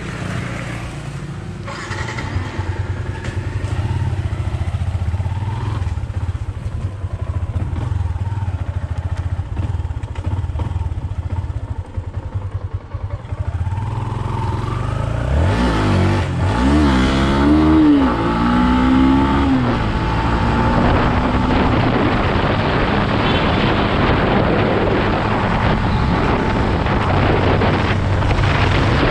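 Yamaha Exciter motorcycle's single-cylinder four-stroke engine running steadily, then from about halfway its pitch rises and falls as it accelerates through the gears. Wind on the microphone grows louder over the last third.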